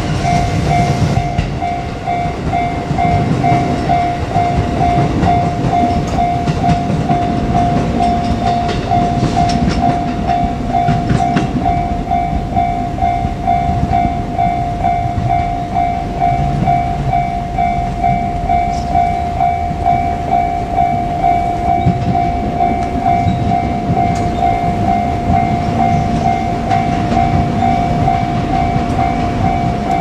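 Japanese level-crossing warning bell ringing with a fast, even, repeating ding over the low rumble of a JR Kyushu 787-series electric express train running on the rails. The bell keeps ringing without a break while the trains pass at the crossing.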